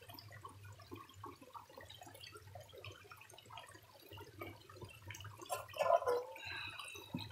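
Shallow stream trickling and dripping over stones, with many small gurgles. About six seconds in there is a louder splash and gurgle as a hand dips into the water.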